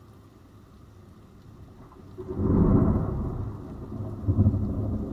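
Thunder rumbling: it builds a little over two seconds in, peaks, then rolls on with a second swell near the end, over a steady hiss of rain.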